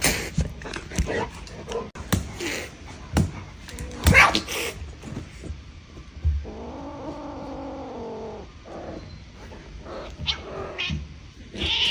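A cat's drawn-out yowl lasting about two seconds, just past the middle, with a run of sharp knocks and thumps before it, the loudest about four seconds in.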